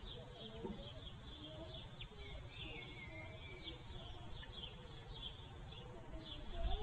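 Small birds chirping faintly, short high notes repeating several times a second with a brief falling trill about two seconds in, over a low steady background rumble.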